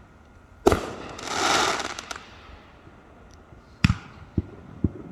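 Consumer fireworks going off: a sharp bang followed by a crackling hiss that swells and fades over about a second, then another bang near four seconds in and a few smaller pops.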